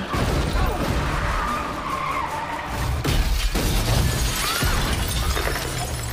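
Film car-chase sound effects: a car's engine running hard and tyres skidding. About three seconds in comes a crash as the car smashes through a shop's glass front, with glass shattering.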